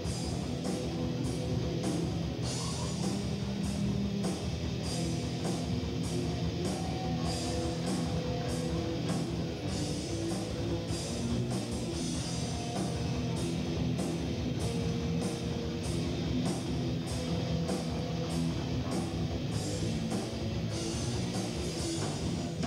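Heavy metal band playing live at a fast tempo: distorted electric guitars, bass and a drum kit, with cymbals struck on a steady, even beat.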